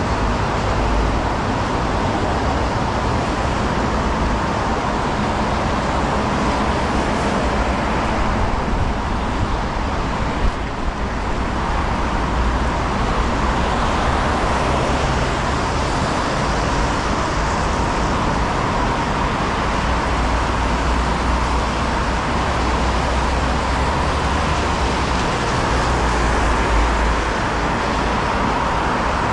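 Steady city street traffic noise: cars passing, with a continuous low rumble.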